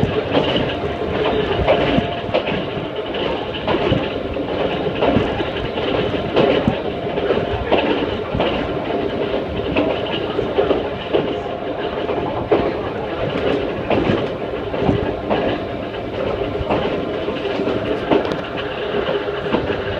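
Ohmi Railway 220-series electric car running at speed, heard from inside the car. Its nose-suspended traction motors and gears give a steady whine, with the clickety-clack of wheels over rail joints.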